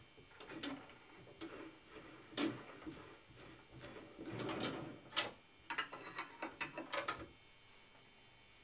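A 6 mm tap, turned by hand through the drill press spindle, cutting a thread into an iron square tube: faint scraping and small clicks as it is worked back and forth to break the chips. There is a longer scrape a little past halfway, then a quick run of clicks, and the sound stops about a second before the end.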